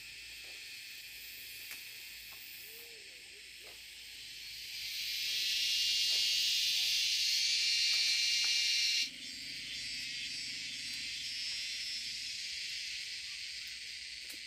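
A chorus of insects chirring, a dense high buzz that swells in loudness about four seconds in and drops off suddenly around nine seconds, carrying on more quietly after that.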